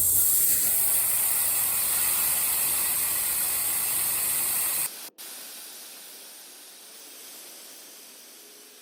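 Compressed air hissing out of a Tesla's air suspension as it is bled down: a loud, steady hiss that drops sharply about five seconds in, then goes on quieter and slowly fades.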